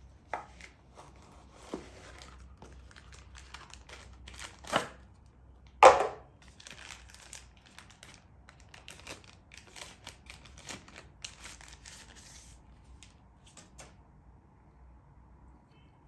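Packaging being unwrapped and handled: crinkling and rustling with scattered clicks and tearing. A sharp, loud noise comes about six seconds in, and the handling dies away about three-quarters of the way through.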